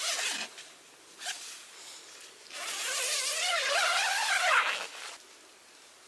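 Zipper on a tent's mesh inner door being pulled along, a rasping buzz whose pitch wavers with the speed of the pull. One run ends about half a second in, a short zip comes about a second in, and a longer run follows from about two and a half seconds to nearly five.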